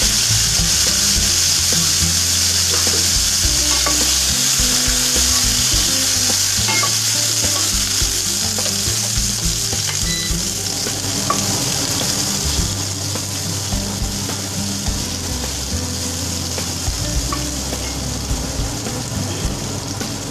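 Pieces of raw green mango sizzling in hot mustard oil with mustard seeds and dried chilli, just tipped into the pan and being stirred, with occasional light clicks. The sizzle is loud at first and eases off gradually.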